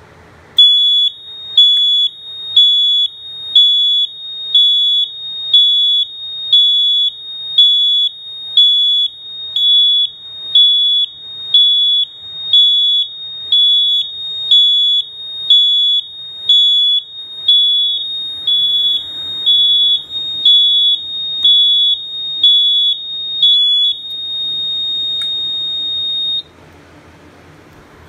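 EST fire alarm horn strobe sounding a loud, high-pitched horn in pulses at about one a second: an alarm activation set off by the smoke detector. Near the end the pulses give way to a steady tone for a couple of seconds, which then cuts off suddenly.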